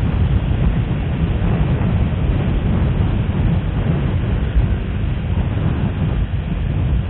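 Steady wind rush on a motorcycle-mounted action camera's microphone at riding speed, a low rumble with the bike's running noise mixed in.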